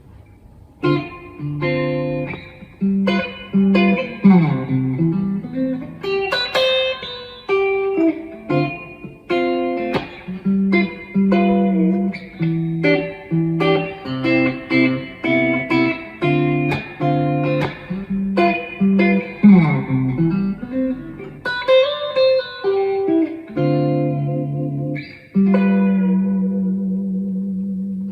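Sire J5 electric guitar with a Jazzmaster/Mustang-style bridge, played unaccompanied: a phrase of plucked single notes and chords, with a couple of notes slid up and down the neck.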